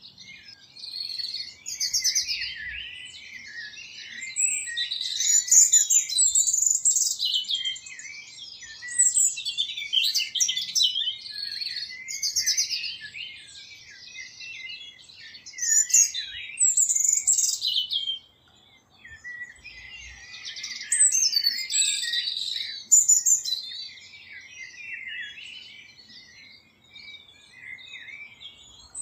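Songbirds chirping and singing, many high-pitched phrases overlapping in a continuous chorus.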